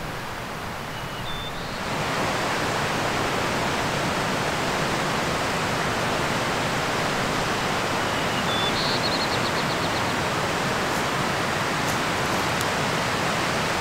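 A steady rushing noise, louder from about two seconds in. A bird sings a short phrase of a few high notes ending in a quick trill about nine seconds in.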